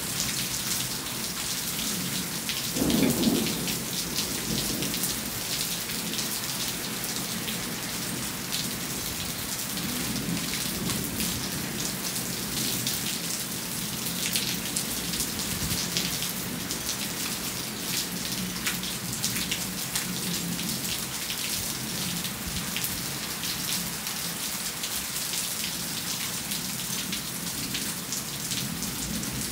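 Steady rain falling, with many close drops ticking on hard surfaces. A short low rumble of thunder comes about three seconds in, with fainter rumbles later.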